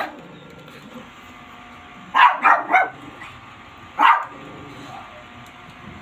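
Small dog barking: three quick barks about two seconds in, then a single bark about four seconds in.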